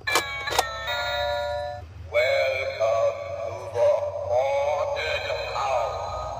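Spooky novelty doorbell set off: two quick clicks, an electronic ding-dong chime, then a wavering electronic tune that plays on for several seconds.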